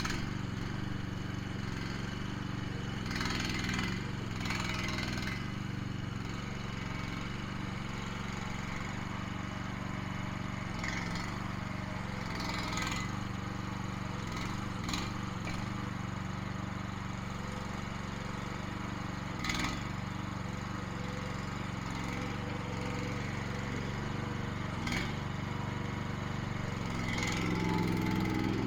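Small engine running steadily, with occasional sharp knocks and cracks over it.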